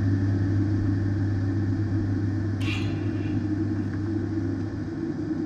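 Beechcraft King Air 350's Pratt & Whitney PT6A turboprop engines running at low power while taxiing, heard from inside the cockpit as a steady drone with a low hum and a higher tone. A brief high-pitched sound comes about two and a half seconds in.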